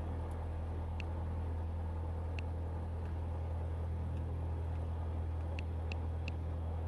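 Cessna 172's piston engine idling with a steady low drone, propeller turning, while the plane creeps along at walking pace. A few faint short ticks come on top of it.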